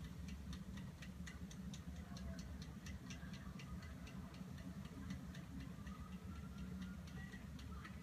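Faint, rapid light ticking, a few small clicks a second, over a low steady hum.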